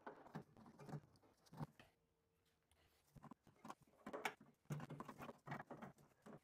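Faint, irregular knocks, taps and scraping as a rubber suspension cone is pushed and wiggled into place in a Classic Mini's subframe by a gloved hand, with a short lull about two seconds in.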